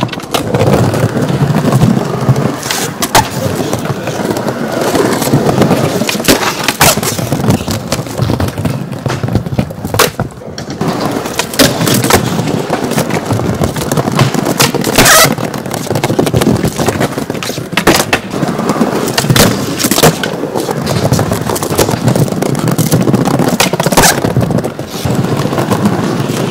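Skateboard wheels rolling over concrete, with sharp clacks every few seconds from the board popping and landing.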